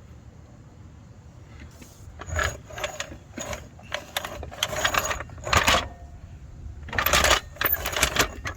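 Irregular metal clanks and rattles from a jack being handled and positioned under the car, starting about two seconds in, with a short lull before a last cluster.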